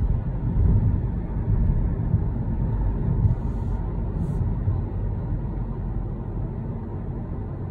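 Low, steady engine and road rumble heard inside a moving city bus.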